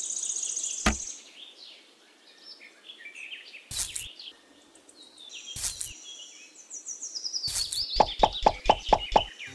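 Birds chirping in short high calls, broken by a few sharp knocks about one, four and six seconds in. Near the end comes a quick, even run of about eight pitched taps.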